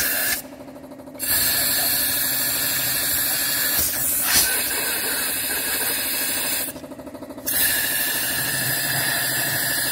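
Compressed air blasting from a blow gun into a car engine's spark plug holes to clear out loosened carbon residue after cleaning: a loud, steady hiss that stops twice for under a second, about half a second in and again about seven seconds in, when the trigger is let go.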